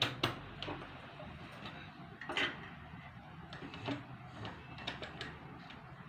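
Irregular clicks, knocks and rustles of hands working at a sewing machine and handling the saree cloth, with the loudest knocks at the start and about two and a half seconds in; the machine is not running a stitch.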